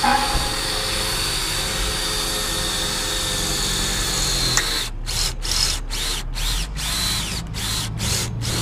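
Cordless drill drilling at a steel bracket on a metal frame rail: the motor runs steadily at full speed for about four and a half seconds. Then it comes in short spurts, about two a second, each speeding up and dying away as the trigger is pulsed.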